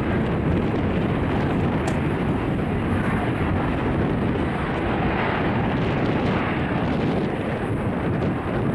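Loud, steady jet noise from an F-35B Lightning II's single Pratt & Whitney F135 engine: a dense low rumble with hiss above it.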